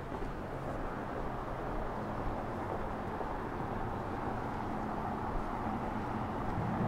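Steady city background hum of distant road traffic, with no single event standing out.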